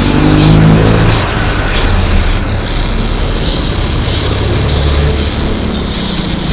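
Steady low rumble of a motor vehicle engine on the road, loudest and bending in pitch in the first second as it passes close, over wind and road noise.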